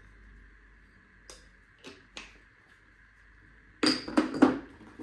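Spice containers being handled over a kitchen counter: a few faint clicks, then a quick clatter of several sharp knocks about four seconds in.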